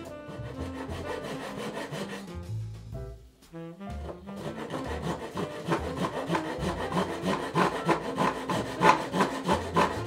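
Japanese pull saw ripping a taper along a cherry desk leg, with rhythmic strokes about two to three a second that grow louder from about four seconds in. Background music with a saxophone-like lead plays alongside, plainest in the first few seconds.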